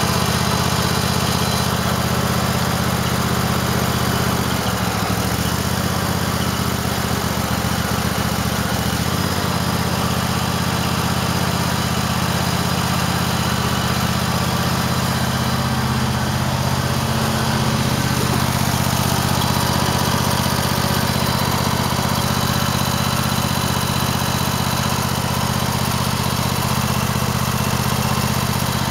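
2008 Cub Cadet LT1050's 23-horsepower two-cylinder Kohler engine running steadily at idle, just started after a fuel filter change while fuel refills the new filter.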